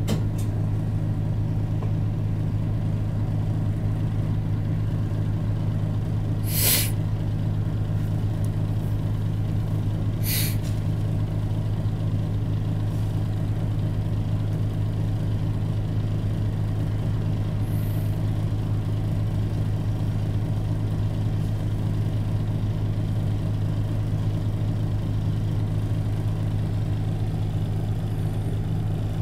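Isuzu Erga Mio city bus's four-cylinder diesel engine idling steadily with the bus at a standstill, heard from inside the cabin. Two short hisses of released air come about seven and ten seconds in.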